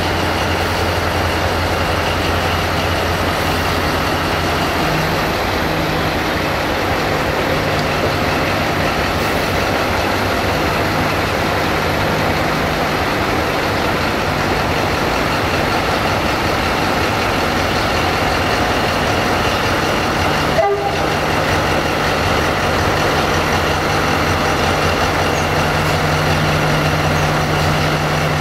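Diesel-hydraulic shunting locomotive's engine running steadily as it moves a dead steam locomotive slowly along the track. Its low hum grows louder near the end, over a steady hiss of rain.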